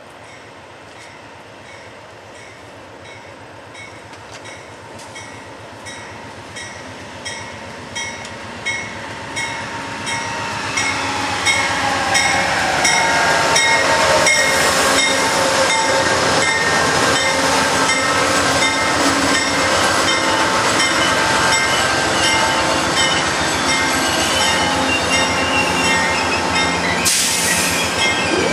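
Amtrak GE Genesis diesel locomotive pulling a passenger train into the station, growing steadily louder over about twelve seconds and then running loud alongside. A bell rings about twice a second throughout. A falling whine comes as it slows, and wheel and rail noise follows as the cars roll past.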